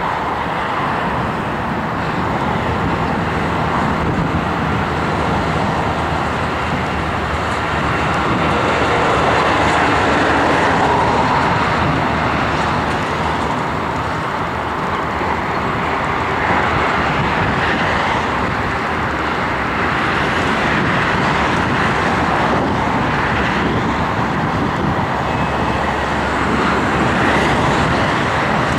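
Steady airport apron noise while a Boeing 747-8 is towed by an aircraft tug: a continuous loud rush over a low hum, from aircraft engines and ground vehicles.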